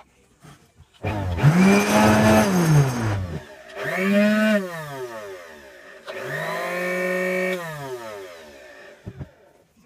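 Homemade sander driven by a salvaged fruit-juicer motor, a sanding pad on its shaft, run three times in short bursts. Each time the motor whines up to speed, runs briefly, and winds down with a falling pitch once it is switched off.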